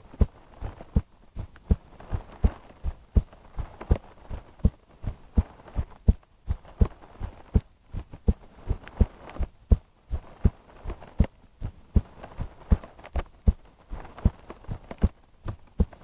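A woman's heartbeat recorded close up, beating steadily with a double thump to each beat, a little faster than one beat a second.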